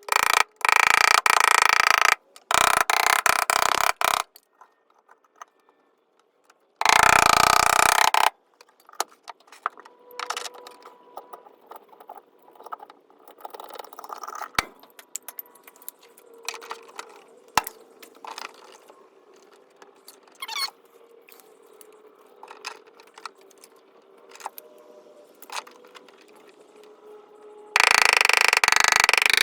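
Several loud hissing bursts of a second or two each, near the start, about seven seconds in and again near the end, with faint clicks, taps and tool handling between them, from hand work on a dented car body panel in paintless dent repair.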